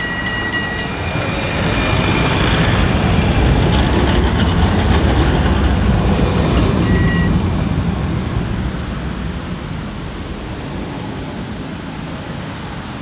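Vehicle rumble that swells to a peak around the middle and fades away, with a short high steady tone at the start and again about seven seconds in.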